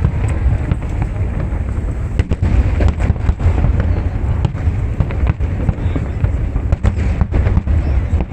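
Aerial fireworks display going off in a dense barrage: a continuous low rumble of booms with many sharp bangs and cracks overlapping.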